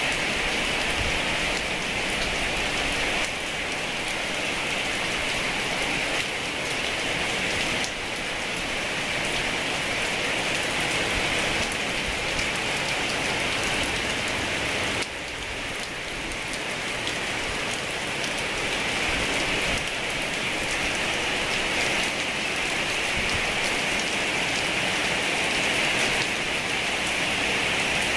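Heavy rain falling steadily, a dense even hiss of drops with a brief dip in level about halfway through.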